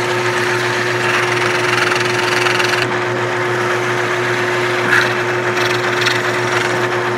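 Drill press running steadily with a 15/64-inch bit cutting through Kydex plastic, the bit grabbing a little as it cuts. The steady motor hum shows the bit spinning at a lower speed than would best stop it grabbing.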